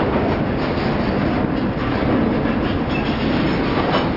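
Freight cars rolling past at close range: a steady rumble of steel wheels on the rails, with a few wheel clicks near the end.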